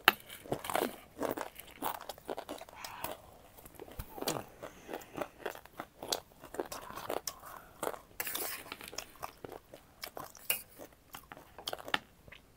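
A person chewing and biting crunchy food close to the microphone: many quick, irregular crunches with short pauses between bites.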